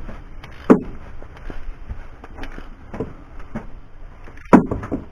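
Scattered light clinks and knocks of hand tools and metal parts being worked, with two sharper knocks, one about a second in and one near the end.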